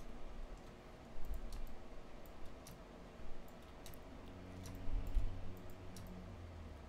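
Irregular clicks of a computer mouse and keyboard, about a dozen scattered over several seconds, with a few low thumps underneath.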